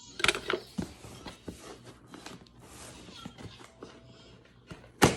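Cardboard box being opened by hand: flaps and packing material rustling and scraping in short irregular bursts, with a sharp knock near the start and a louder one just before the end.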